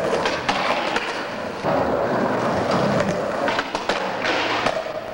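Skateboard wheels rolling on concrete, with several sharp clacks of the board striking the ground and a grind of the trucks along a low bench.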